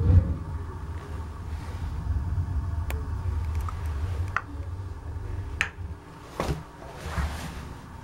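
Gas water heater's main burner lighting with a sudden low whoosh, then burning with a steady low rumble that fades out about six seconds in. A few sharp clicks come over it.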